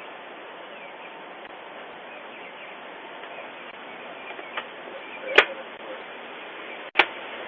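Steady outdoor hiss from a doorbell camera's microphone, with faint chirps, broken by two sharp cracks, about five and seven seconds in.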